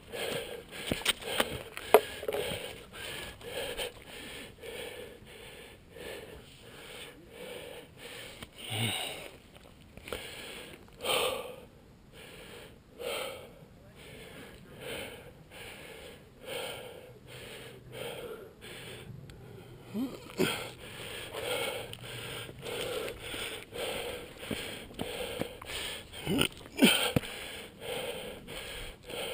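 A person breathing heavily and fast, out of breath from exertion, in a steady rhythm of about two breaths a second.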